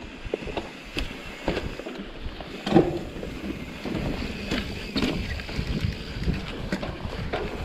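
Mountain bike riding over a leaf-covered dirt trail: a steady rush of tyre and trail noise with wind on the microphone, broken by scattered clicks, knocks and rattles from the bike, the loudest knock about three seconds in.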